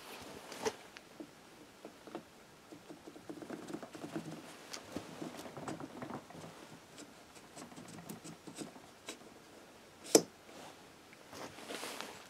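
Light clicks and rattles of small metal parts being handled and fitted on an open Yamaha YBR 125 crankcase, with one sharper, louder metallic click about ten seconds in.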